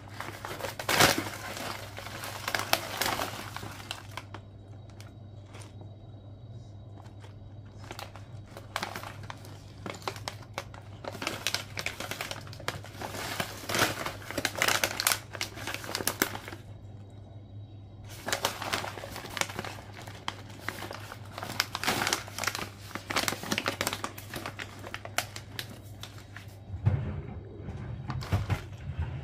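Metallised plastic snack bag crinkling as hands handle and turn it over, in several bouts with short pauses between. A low steady hum runs underneath, and a few soft low knocks come near the end.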